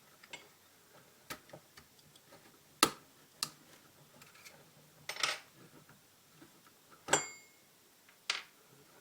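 Irregular sharp metal clicks and taps, about seven in all, as a pin is worked out of an FN FNP-40 pistol frame without a proper punch. One click about seven seconds in rings briefly.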